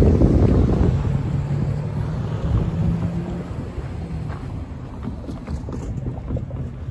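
Wind buffeting the microphone over a low rumble that is heavy at first and fades over the first few seconds, with a steady low hum for a couple of seconds.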